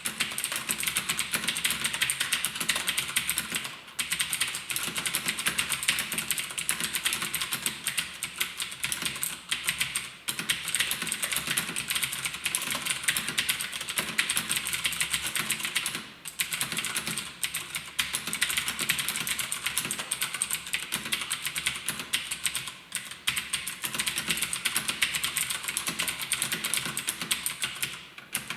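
Fast, continuous typing on a Cooler Master MasterKeys Pro S mechanical keyboard with clicky Cherry MX RGB Blue switches, a dense run of sharp key clicks. The typing breaks off briefly four times.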